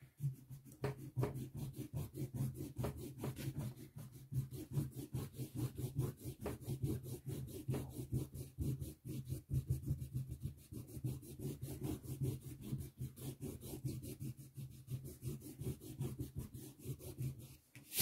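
Eraser rubbing back and forth over watercolour paper in quick repeated strokes, clearing pencil guidelines from under a finished ink drawing.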